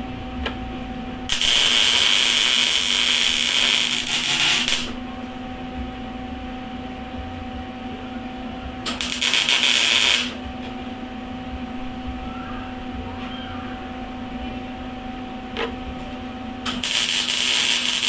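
MIG welder arc crackling and hissing in three separate welds: one of about three and a half seconds starting about a second in, a short one around nine seconds in, and another starting near the end. Between welds a steady hum is heard.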